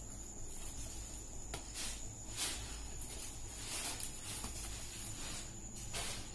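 Plastic-wrapped plastic chopping board being handled and set down, its cling film rustling and crinkling in several short bursts over a steady background hum and a faint high whine.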